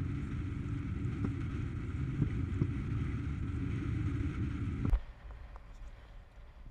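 Wind buffeting the microphone and water rushing past as a windsurf foil board rides at speed, a steady low rumble with a hiss above it. About five seconds in it cuts off sharply with a click to a much quieter stretch with a few light taps.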